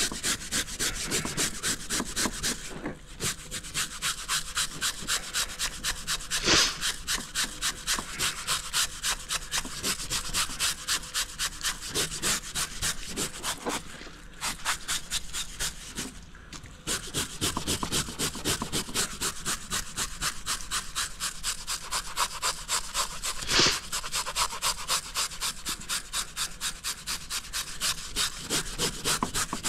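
Stainless steel wire brush scrubbing the scales off a flounder in quick back-and-forth strokes, about four a second, with a few brief pauses.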